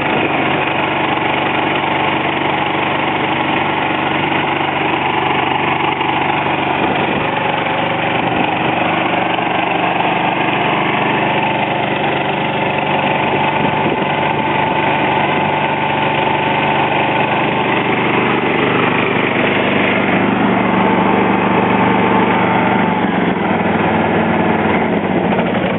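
John Deere lawn tractor engine running steadily just after a cold start, starting to warm up.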